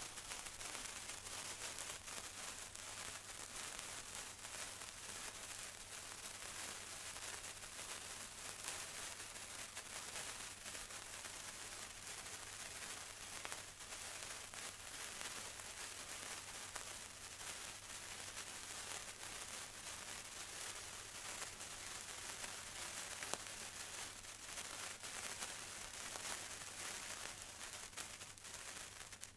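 A lit sparkler fizzing: a steady high hiss dense with tiny crackles, dying down at the very end.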